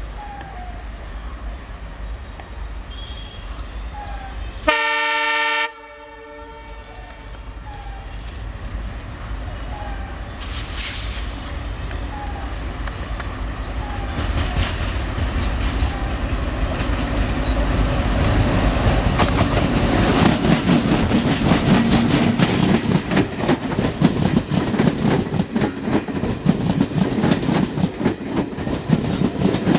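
An Indian Railways ALCo WDM3A diesel locomotive sounds one loud horn blast of about a second, some five seconds in. It then draws near hauling passenger coaches, and its rumble grows louder. In the second half the coaches run close past with a rapid clatter of wheels over rail joints and points.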